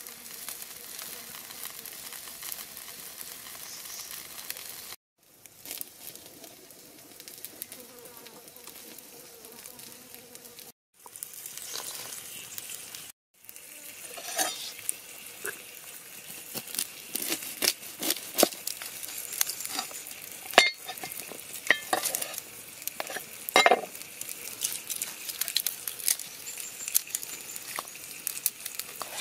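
Two whole red tilapia sizzling as they fry on a hot blackened griddle pan over a wood fire. After a few short breaks, a run of irregular sharp clicks and taps from hand food preparation over a quieter hiss.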